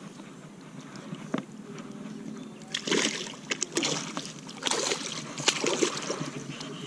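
Rustling and scuffing of clothing and bank grass as a person clambers down a grassy bank, in irregular bursts from about three seconds in.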